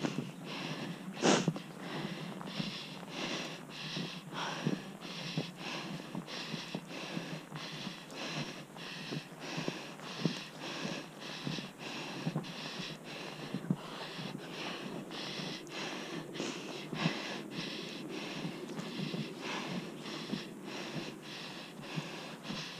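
Footsteps crunching in snow at a steady walking pace, about two to three steps a second, with one sharper, louder crunch about a second in.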